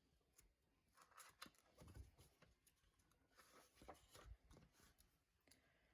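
Near silence: room tone with a few faint, short rustles and clicks.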